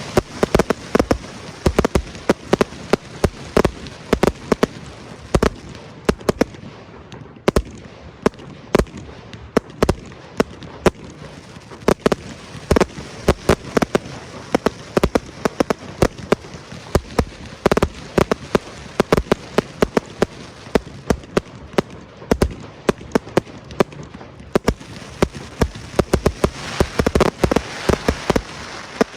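Aerial fireworks display: a dense, irregular run of shell bursts and crackling reports, several a second, with the bangs echoing.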